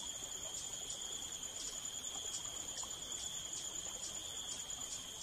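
Steady, high-pitched chorus of insects shrilling in the rainforest, with faint pulses repeating a few times a second.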